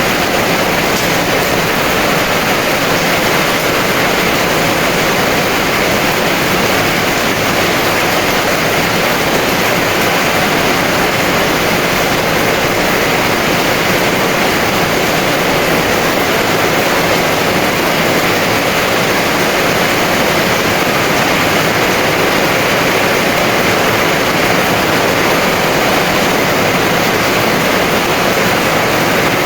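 Heavy rain pouring steadily, a dense even hiss with no separate drops or thunder standing out.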